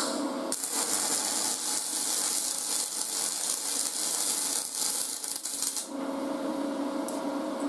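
YesWelder MIG250 PRO MIG-welding arc on aluminum wire: a steady hiss with a fine crackle starts about half a second in and cuts off about six seconds in. It is a test bead at 16.5 volts that runs too hot.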